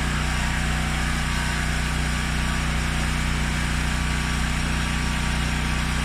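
Portable generator's small engine running at a steady speed, with an even drone that does not change.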